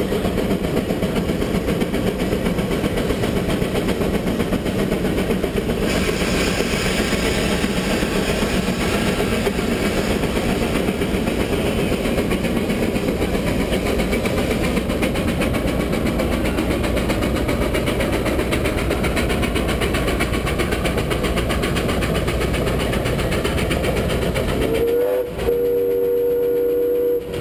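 Steam traction engine working under load pulling a gang plow, a steady, dense mechanical running noise. About two seconds from the end a steam whistle sounds, sliding briefly up to a steady pitch and holding it.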